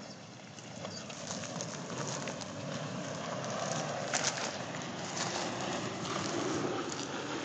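Toyota FJ Cruiser crawling down a steep rocky dirt slope: its tyres crunch over gravel and stones and its engine runs low underneath. It gets louder from about a second in as the vehicle comes close.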